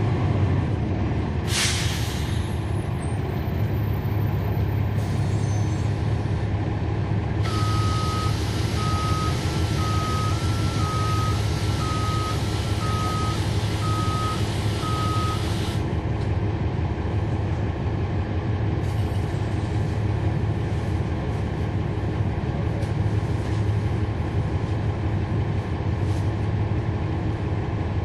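Cummins ISL9 diesel engine of a NABI 40-foot city bus running steadily, heard from inside the rear of the bus. About two seconds in there is a short, sharp hiss of air. Later a long air hiss plays with a warning beep repeating a little more than once a second for about eight seconds.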